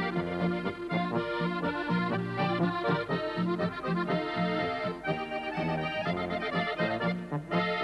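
Accordion playing a lively folk tune: a melody of quick notes over a steady, pulsing bass accompaniment.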